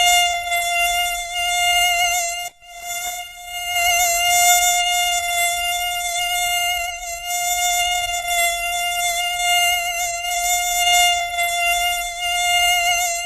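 Mosquito whine: the steady, high-pitched buzz of its wingbeat, wavering slightly in pitch. It breaks off briefly about two and a half seconds in, then resumes.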